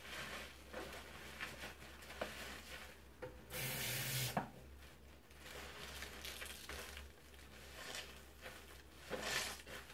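A lathered bath sponge squeezed and squished in the hands, with wet squelching and the crackle of soap foam. About three and a half seconds in comes a louder hissing rush lasting under a second.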